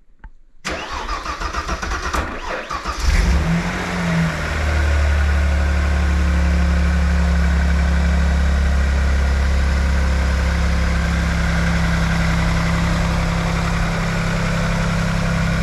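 Opel Calibra V6 engine cold-started after a month standing in winter: the starter cranks for about two seconds, the engine catches about three seconds in, revs briefly, then settles into a steady idle. The battery has held its charge.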